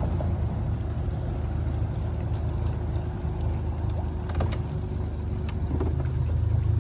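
A small boat's motor running steadily underway, a low even hum that grows a little louder near the end, with a few light knocks about four seconds in.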